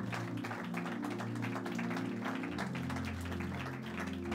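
Soft instrumental worship music: sustained chords over a held bass note that shifts to a new note about halfway through.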